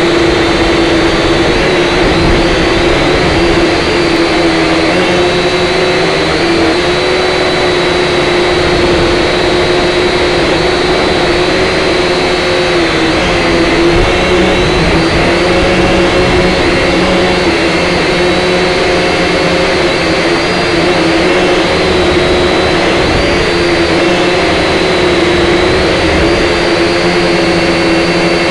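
Syma X5SC quadcopter's motors and propellers whining in flight, heard close up through its onboard camera. The loud, steady whine drifts slightly up and down in pitch as the throttle changes.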